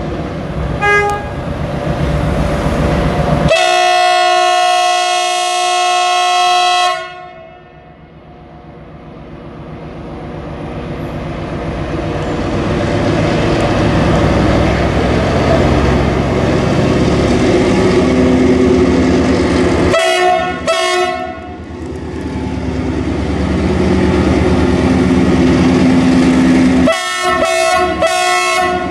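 CRRC Ziyang CDD6A1 diesel-electric locomotive departing with a train of empty hopper cars. Its horn gives a brief toot, then a long blast of about three seconds, while the engine builds up and runs loud. Later the horn sounds two short toots, then three quick toots near the end.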